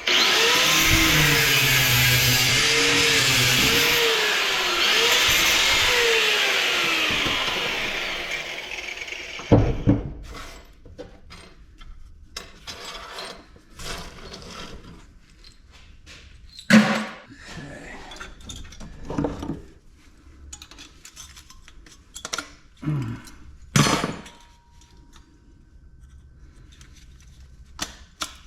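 Electric saw cutting scrap metal, its motor pitch wavering under load for about eight seconds before it winds down. Scattered metal clanks and knocks follow as the cut parts are handled.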